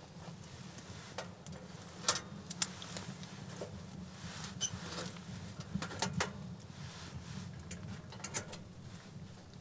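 Wood fire crackling in a tent stove that is burning well: irregular sharp pops and snaps over a low steady background.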